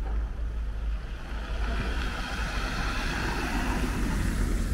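A vehicle passing on the street: a hiss of tyre noise swells to a peak about three seconds in and fades, over a steady low rumble.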